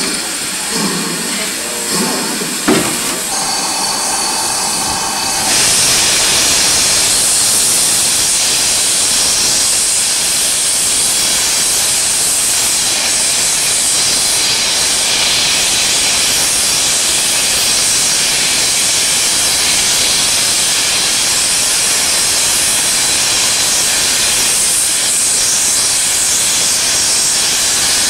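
GWR small prairie 2-6-2 tank engine No. 5526 gives a few clanks and a short whistle, then from about five seconds in releases steam with a loud, steady hiss.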